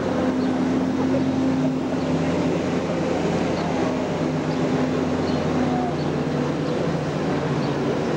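Engine of a vintage military truck running as the truck drives slowly past.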